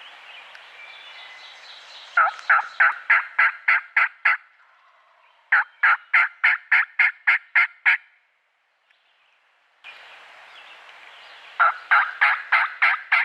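Turkey yelping: three loud runs of about nine evenly spaced yelps, roughly four a second, over a steady background hiss.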